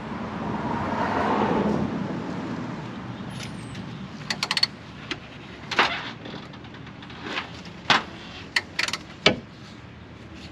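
A passing vehicle swells up and fades away over the first few seconds. It is followed by a scatter of short, sharp clicks and knocks from hand-tool work on the car.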